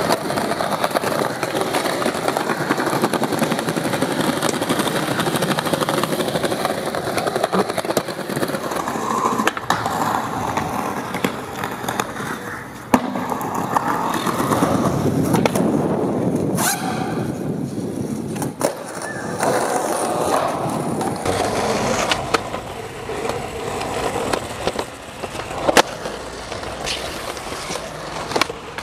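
Skateboard wheels rolling on concrete, with sharp clacks of the board popping and landing tricks several times, cut between takes.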